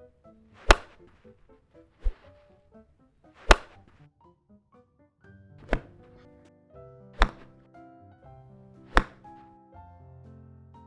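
Golf club swings, each a short whoosh ending in a sharp crack as the clubhead strikes the ball, six hits about one and a half to two seconds apart. Quiet background music runs underneath.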